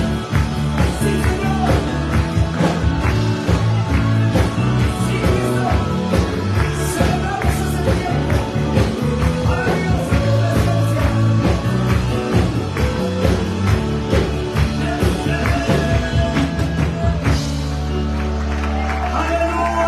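Live band music with singing over a steady beat of drums and bass; about three seconds before the end the rhythm stops and a final chord is held.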